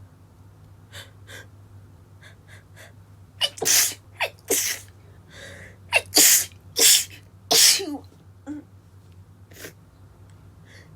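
A woman's sneezing fit set off by sawdust: a quick run of about six stifled sneezes from about three and a half seconds in, with short sharp catches of breath before and after them.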